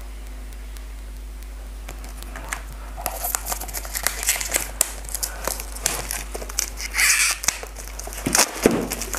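Clear plastic shrink-wrap being peeled and torn off a cardboard earphone box, crinkling and crackling in quick irregular bursts that start about three seconds in.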